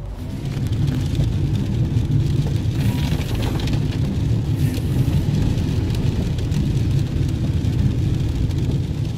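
Car cabin noise while driving in the rain: a steady low rumble of the engine and tyres on the wet road, with a hiss of rain and spray over it.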